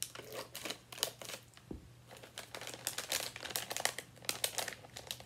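Plastic candy bag crinkling as it is cut open with scissors and handled: a run of crisp crinkles and snips, with a soft low bump just under two seconds in.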